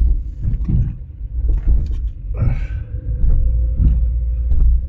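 Car driving slowly over a rough, potholed road: a loud, uneven low rumble with irregular thumps.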